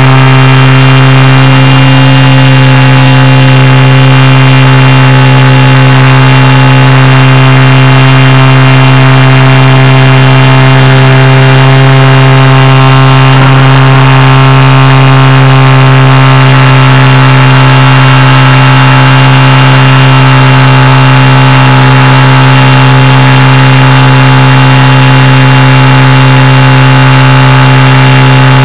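Small floatplane's engine running steadily while taxiing on the water: a loud, even engine drone with a low hum that holds one pitch throughout, with no revving.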